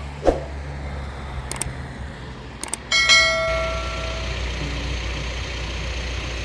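A machine engine runs steadily. About three seconds in comes a loud metallic clang that rings on for about a second, and short knocks come just after the start and at the very end.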